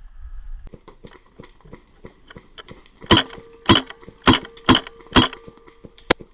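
Footsteps crunching and snapping through dry brush and twigs: light irregular crackling at first, then five loud snaps about half a second apart, and one very sharp click near the end.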